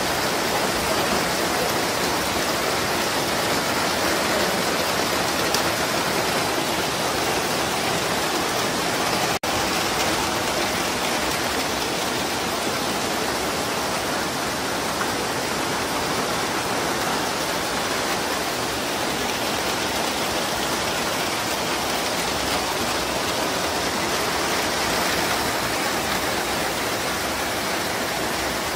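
Heavy rain pouring steadily onto foliage and puddled ground, a dense, even hiss with one momentary break about nine and a half seconds in.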